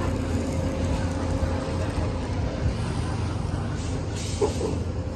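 Road traffic: vehicle engines running with a steady low rumble, and a short higher sound about four seconds in.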